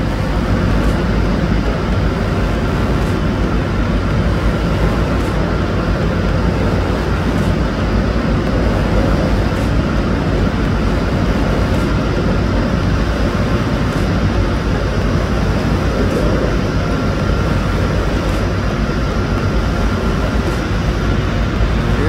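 Steady, loud drone of running machinery with a low hum beneath it, unchanging throughout.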